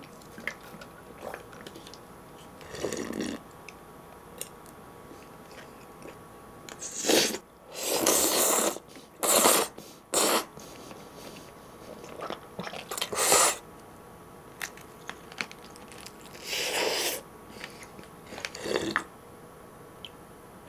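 Close-miked eating: a person slurping udon noodles in several loud slurps around the middle, with chewing and scattered small clicks between them.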